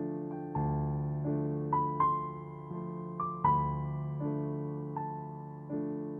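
Background piano music: chords struck roughly every three quarters of a second, each fading away, with a few higher melody notes about two to three and a half seconds in.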